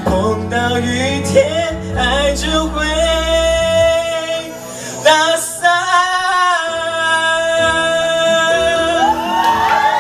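A young man singing a Mandarin pop ballad live into a microphone over a karaoke backing track, ending on a long held note. Near the end the audience starts cheering and whooping.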